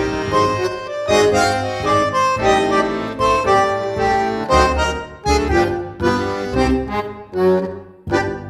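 Dance music: a melodic lead over a steady bass beat, which in the last few seconds breaks into short separate chords that ring out and fade.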